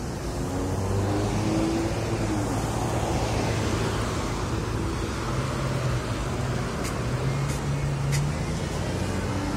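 Road traffic: a motor vehicle's engine hum and road noise, swelling about a second in and then holding steady.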